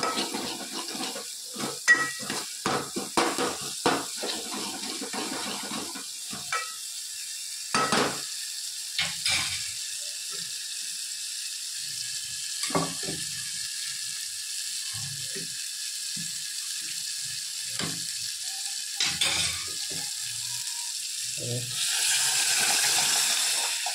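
A spoon knocking and scraping in a cooking pot as spiced dal is stirred, over a steady frying sizzle. The knocks come thick and fast at first and thin out later. Near the end the sizzle swells louder for a couple of seconds.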